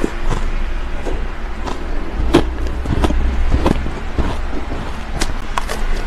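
Close-miked chewing and crunching of mouthfuls of soft, snowy shaved ice, with a metal spoon scooping through the ice in a plastic tub. The crunches come irregularly and are loudest about two and a half and three and a half seconds in, over a steady low rumble.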